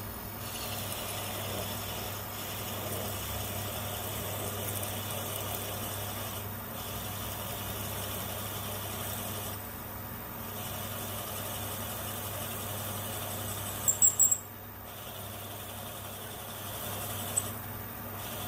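Metal lathe running while a twist drill in the tailstock chuck bores into a spinning bronze brake-cylinder casting: a steady motor hum under the cutting noise. A short cluster of sharp high squeaks comes about fourteen seconds in, and one more near the end.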